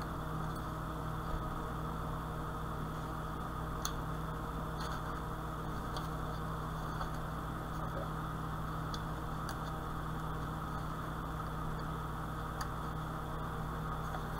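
Steady low electrical hum with a faint high whine over it, and a few faint clicks from time to time.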